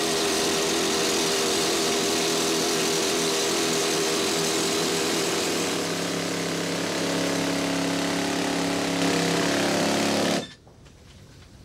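Pneumatic rock drill running steadily, a loud hiss of exhaust air over a hammering drone, then cutting off suddenly about ten seconds in.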